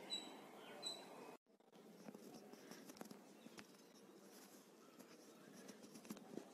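Very faint sounds of a spoon working butter into a plastic mixing bowl. A few short high squeaks come in the first second or so. After a brief dropout there are only light scattered clicks and scraping.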